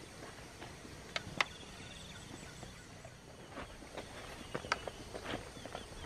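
Two sharp clicks a little over a second in, then footsteps on grass and stubble, irregular soft steps and rustles starting about halfway through.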